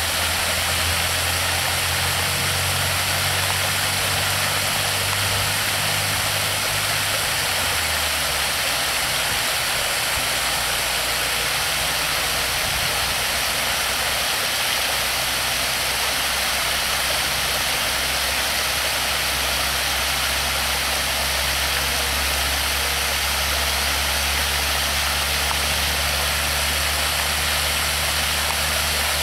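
Water pouring over a low concrete weir and running across its apron: a steady rushing. Underneath is a low steady hum that shifts lower about eight seconds in.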